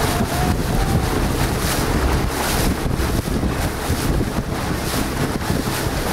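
Wind buffeting the microphone over choppy water, with steady rumble and irregular gusty swishes, and water lapping and splashing.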